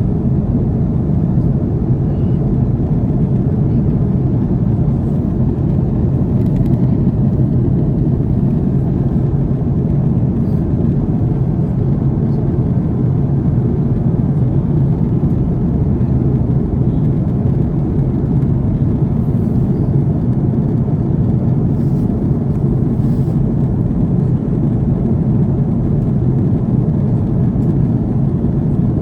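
Steady cabin noise of an Airbus A330 in flight: an even low rumble of engines and airflow heard from inside the passenger cabin.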